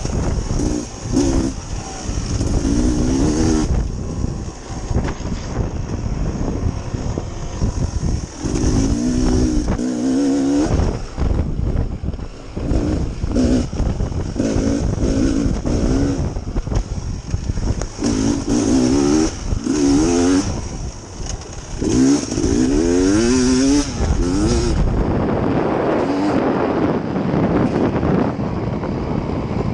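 Dirt bike engine revving in repeated short surges, its pitch climbing and dropping as the throttle is opened and closed, over a steady low rumble.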